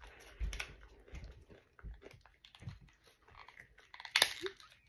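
A small paper-and-plastic packet being crinkled and torn open by hand, a run of small crackles with one sharper crackle about four seconds in.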